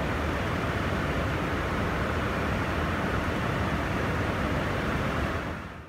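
Steady rushing cabin noise of an aircraft in flight, fading out near the end.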